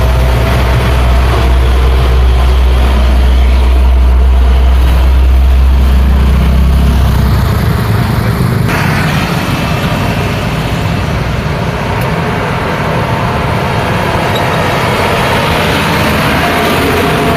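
Busy road traffic. A heavy vehicle's engine runs with a deep, steady rumble for the first half. It then fades, and the steady tyre and engine noise of passing traffic takes over.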